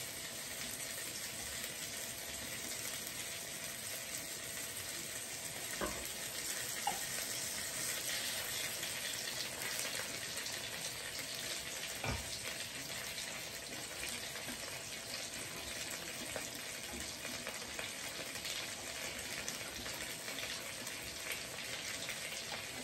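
Chicken breast pieces and butter sizzling in a skillet, a steady frying hiss, with a couple of light knocks about six and twelve seconds in.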